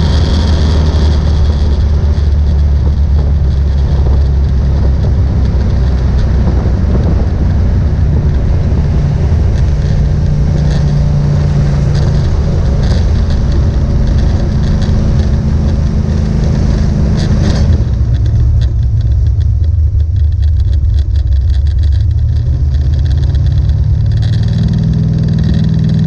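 The 1970 Plymouth Duster's 440 big-block V8, heard from inside the cabin while driving, running loud and steady under throttle. About eighteen seconds in the throttle comes off and the engine note drops, then it rises again near the end.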